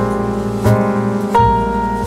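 Background piano music, with a new chord struck about every two-thirds of a second.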